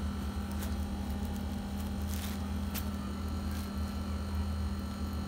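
Steady low electrical hum, with a few brief faint rustles from garments and their plastic packets being handled.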